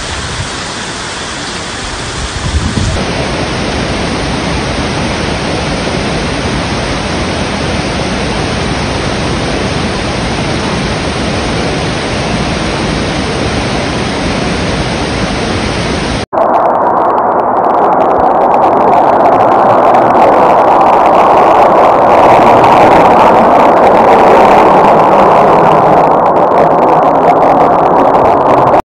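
Steady rushing noise of torrential rain and flood water. About sixteen seconds in it cuts abruptly to a louder, denser rush of flood water.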